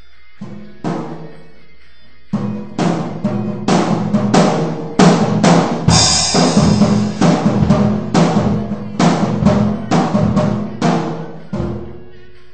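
Acoustic drum kit struck loosely to test its sound: two lone hits, a short pause, then a run of bass drum, snare and tom strikes with some long bright rings, tailing off near the end.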